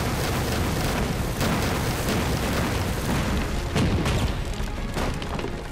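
Battle sound effects of a war film: dense, continuous gunfire with booming explosions.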